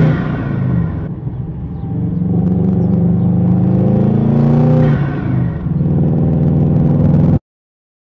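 Subaru Impreza WRX STI's turbocharged flat-four engine revving up and easing off twice while driving, with its blow-off valve removed and the port blocked off. Around the second rise a brief hiss is heard. The sound cuts off suddenly near the end.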